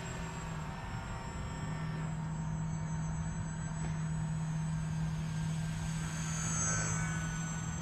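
Brushless electric motor (Suppo 2204/14) and small propeller of a radio-controlled foam plane whining in flight. It grows loudest and shifts in pitch as the plane passes close about six and a half seconds in, over a steady low rumble.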